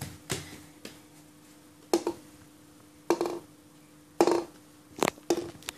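A child's toy knocking against the glass of an aquarium: about six sharp, irregular taps roughly a second apart, each with a short ring.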